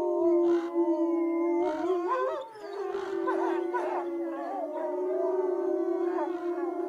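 Two gray wolves howling together in long, overlapping held notes, with a short break about two and a half seconds in before the howling starts again.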